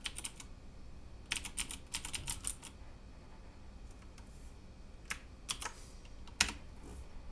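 Keystrokes on a Cooler Master MasterKeys Pro M mechanical keyboard with Cherry MX switches. There are a couple of presses at the start and a quick flurry of about eight key presses about a second in. A few single presses follow between about five and six and a half seconds.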